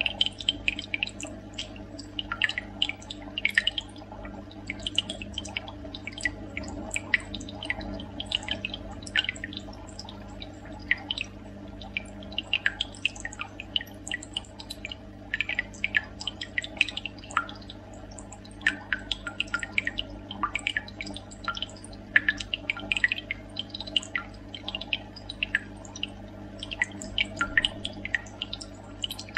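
Bubbling, dripping water: small irregular pops and drips, several a second, over a steady low hum.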